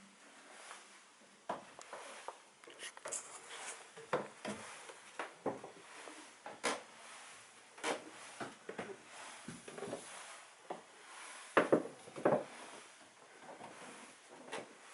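Newly installed staircase creaking and knocking under footsteps, in irregular short creaks and thuds, loudest about two-thirds of the way through. The creak is the fault being shown after installation.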